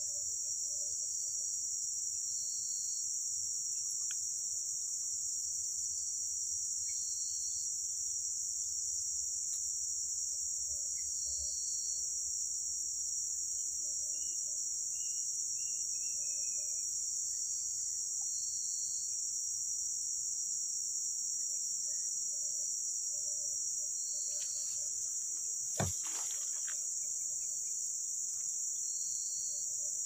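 Steady, high-pitched drone of tropical forest insects, with shorter chirps repeating every second or two beneath it. About halfway through, a bird gives a short run of falling notes, and about 26 s in there is a single sharp knock.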